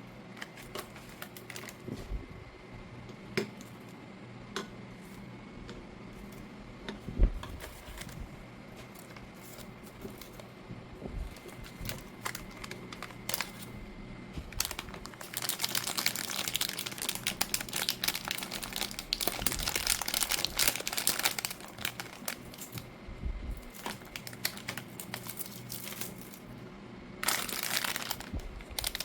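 Plastic snack packaging crinkling as it is handled and opened, with scattered taps and clicks. The crinkling turns dense and louder about halfway through and again near the end, and there is one sharp knock about seven seconds in.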